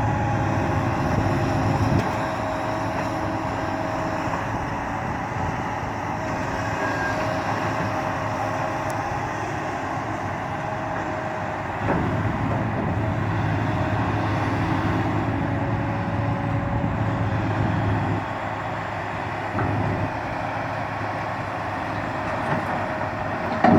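1994 John Deere 450LC track excavator running and working, a steady engine and machinery sound whose level steps up and down a few times as the load changes.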